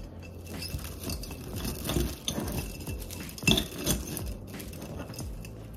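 Stems of winter greenery rustling and clicking against a white vase as they are pushed in and adjusted, with one sharper click about three and a half seconds in.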